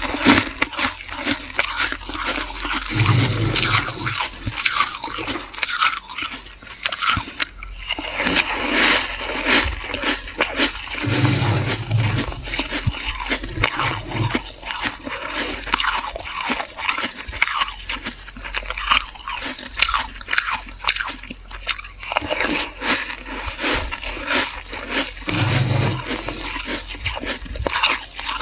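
Metal spoon scraping through and scooping dry, flaky freezer frost: a steady dense run of gritty scratches.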